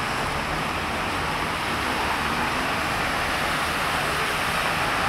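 Heavy rain falling steadily while cars drive past on the flooded road, their tyres hissing and splashing through standing water.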